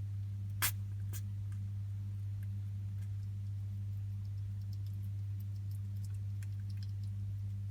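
Pet rat sneezing: two short, sharp sneezes about half a second apart near the start, then faint scattered ticks. A steady low electrical hum runs underneath.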